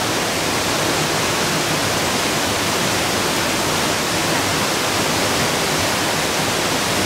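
A mountain brook rushing and cascading over rock ledges in a narrow granite gorge: a steady, unbroken rush of water.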